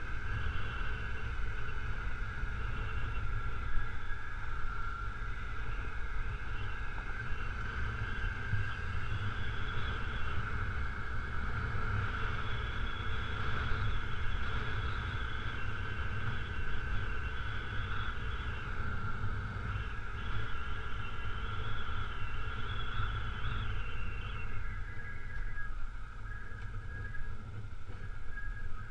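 Honda CRF250L's 250 cc single-cylinder four-stroke engine running steadily as the bike rides a gravel road, over a low rumble of wind and road noise. Near the end the higher part of the engine note fades as the bike eases off.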